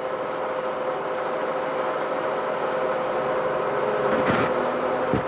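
Film projector running: a steady mechanical whir with a constant hum.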